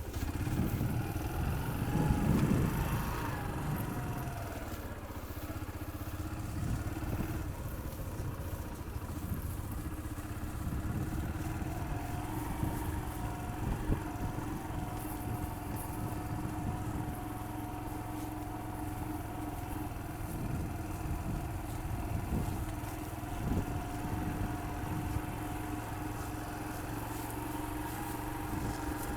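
A motor running steadily with a constant hum and scattered light knocks, slightly louder about two seconds in.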